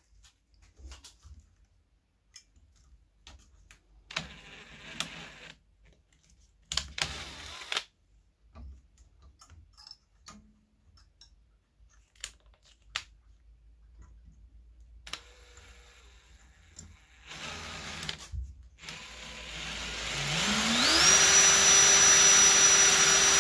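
Scattered small clicks and handling knocks of tools and metal parts. About 20 seconds in, a small bench drill's motor spins up with a rising whine, then runs at a steady high pitch while drilling a small hole in a G-scale track turnout.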